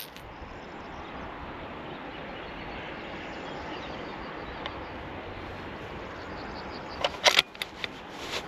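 A steady hiss of rain. About seven seconds in comes a quick run of sharp metallic clicks and knocks, the bolt of a Tikka T3X bolt-action .308 rifle being worked, with one more click near the end.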